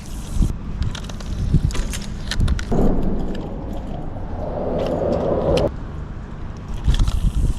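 Fishing reel being cranked to retrieve a cast lure, a grainy whirring in two stretches, over low wind rumble on the microphone with a few sharp clicks.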